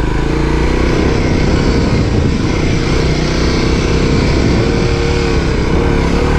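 An off-road vehicle's engine running under load, its pitch rising and falling with the throttle.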